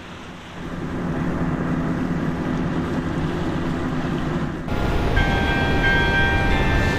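A boat's engine running steadily. About two-thirds in, church bells start ringing over the engine, with several steady ringing tones.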